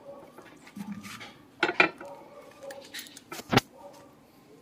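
Sharp clinks and knocks of hard objects around a glazed ceramic bonsai pot being filled with potting mix: a quick pair a little under two seconds in, a few lighter ticks, and a louder single knock about three and a half seconds in, over faint scraping of hands in the soil.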